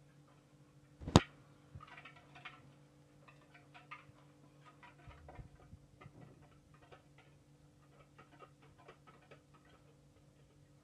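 Wire whisk clicking and tapping against a clear mixing bowl as it stirs a thin rice-flour batter, in light, irregular ticks, with one sharp knock about a second in.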